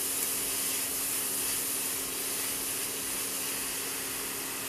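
Grated carrot frying in ghee, a steady sizzling hiss, with a faint steady low hum underneath.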